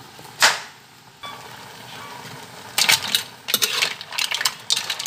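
Kitchen clatter: a sharp knock about half a second in, then a steady hiss, and from about three seconds in a quick run of clicks and rattles.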